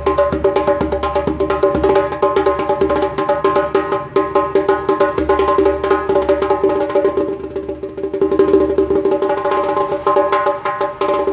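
Djembe with a chicken-skin head played with bare hands in a fast, continuous rhythm of many strokes a second. A steady ringing pitch runs under the strokes.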